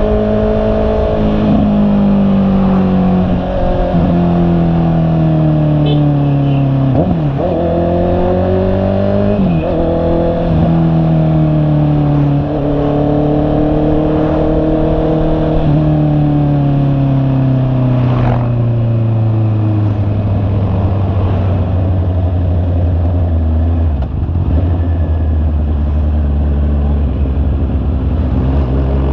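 Honda CB650R's inline-four engine heard from the bike while riding. Its note slowly falls as the bike slows, dips sharply twice with gear changes about seven and nine seconds in, and rises a little again before sinking to a low, steady note for the last several seconds.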